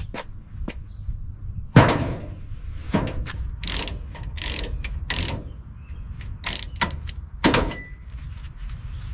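An irregular series of clanks, knocks and clicks from restoration work on car parts, the loudest about two seconds in and another strong one near the end.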